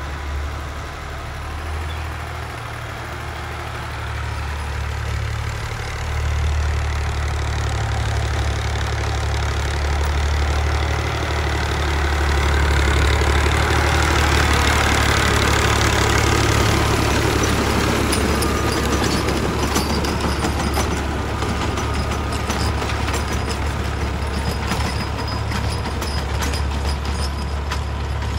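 Fiat farm tractor's diesel engine running steadily under load while driving a rear-mounted rotary tiller through the soil. It grows louder towards the middle as the tractor passes close by. Short ticks and knocks come through in the later part.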